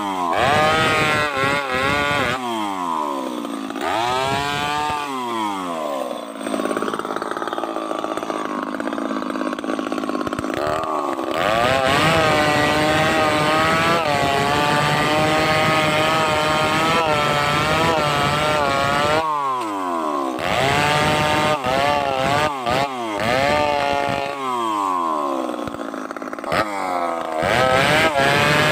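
Two-stroke chainsaw revving up and down several times, between long stretches held at high revs with a wavering pitch while cutting timber.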